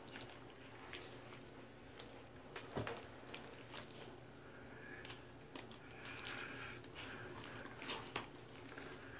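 Thick wet slime making soft squishes and scattered small clicks, with a few sharper clicks about 3 and 8 seconds in.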